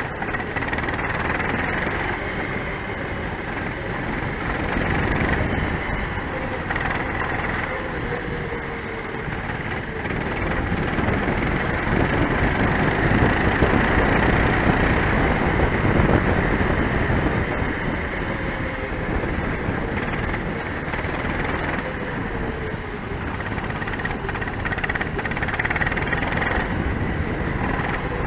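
Racing kart engine running on track from an onboard camera, its pitch rising and falling with the throttle, loudest about halfway through.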